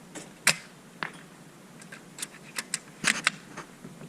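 Bravo BV3 airsoft sniper rifle being fired and worked: a sharp snap about half a second in, another about a second in, then a run of quicker clicks and snaps.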